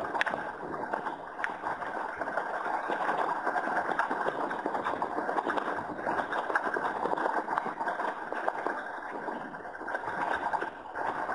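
Water rushing and splashing steadily along the hull of a Hurricane 1000 RC sailing yacht under way, heard close up from its deck, with a brief lull near the end.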